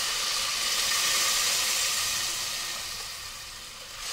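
Water poured into hot oil with fried garlic and cumin in an aluminium pressure cooker pot: a loud, steady hiss and sizzle that fades gradually over the last second and a half.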